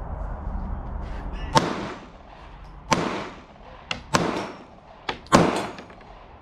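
Compact concealed-carry pistol fired at steel targets 45–50 yards away: four loud, sharp shots about a second and a quarter apart, each ringing out briefly. There are two fainter cracks in between, and another shot comes right at the end.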